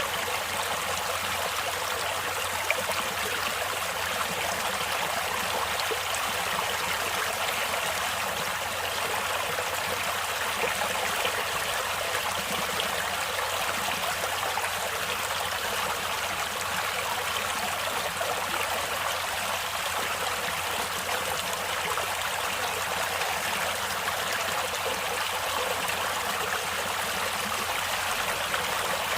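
A natural stream flowing, a steady, even rush of water that is mostly hiss and splash, with no deep rumble and no pauses.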